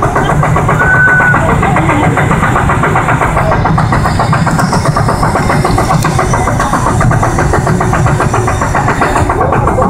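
Roller coaster car running along its track, heard from the seat: a loud, steady rumble with a fast, even clatter.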